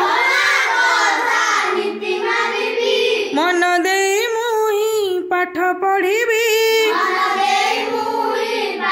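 A group of children chanting an Odia children's rhyme together in a sing-song voice, phrase after phrase with short breaks between lines.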